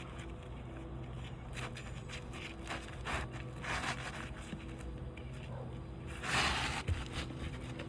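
Scraping and rustling of an asphalt shingle being handled and slid into place on a roof: a few short rasps, then a longer, louder scrape about six seconds in, over a steady low rumble.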